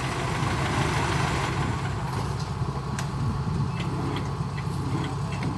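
Combine harvester's diesel engine running steadily at a low hum, with a few faint clicks and knocks.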